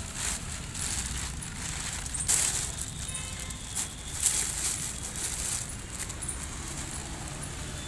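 Dry dog kibble pouring out of a plastic feed sack onto newspaper, coming in several rushes with the sack and paper crinkling. The loudest rushes come about two and a half seconds in and again a little after four seconds.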